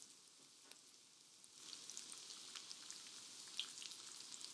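Breaded chicken cutlets shallow-frying in hot oil: a faint sizzle with scattered crackles and pops. It steps up louder about a second and a half in.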